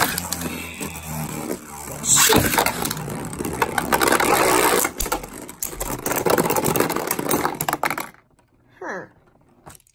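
Beyblade Burst spinning tops launched into a plastic stadium, whirring and scraping on the plastic floor and clashing against each other and the walls with rapid clicks and knocks. The noise stops abruptly about eight seconds in, as the battle ends with one top burst apart.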